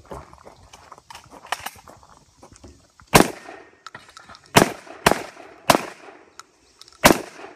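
Five rifle shots fired at steel targets, the first about three seconds in and the rest at uneven intervals of roughly half a second to a second and a half.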